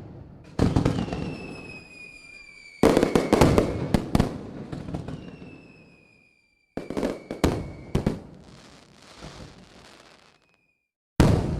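Aerial fireworks going off: a run of sharp booms, with a quick cluster of bangs about three seconds in, each dying away in echo. Twice a high whistle drifts slowly down in pitch, and a crackling hiss follows near the end.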